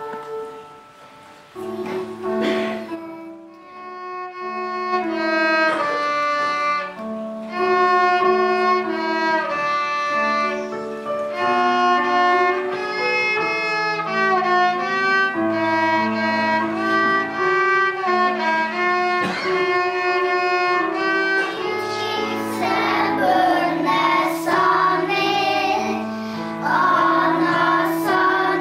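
A violin played by a young girl, bowing a stepped melody over keyboard accompaniment. Near the end the texture thickens and becomes noisier.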